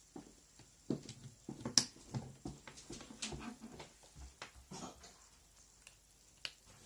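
Faint, irregular clicks and rustles of a USB-C charging cable being handled and plugged into a charger and a phone, with the sharpest click a little under two seconds in.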